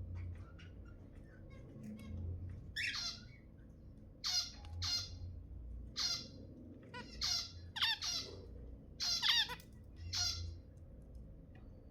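Zebra finches giving short, nasal, honking calls, about nine of them at irregular intervals, with faint small ticks between them.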